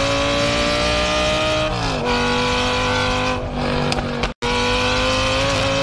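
Race car engine sound at high revs, holding a steady pitch that creeps up and then drops at about two seconds. It cuts out for an instant a little past four seconds.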